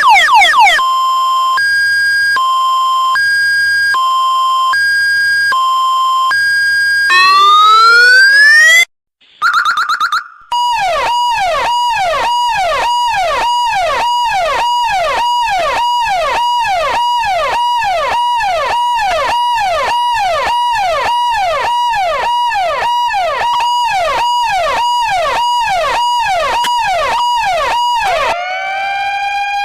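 Emergency vehicle sirens playing one pattern after another. First a two-tone high-low siren alternating about once a second, then a rising wail, a brief break, and a long fast yelp of about two sweeps a second. A slow wail starts rising near the end.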